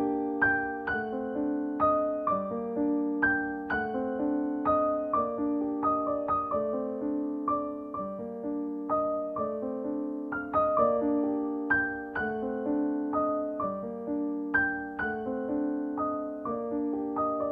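Background music: a keyboard melody of struck notes that ring and fade, played at a steady, even pace.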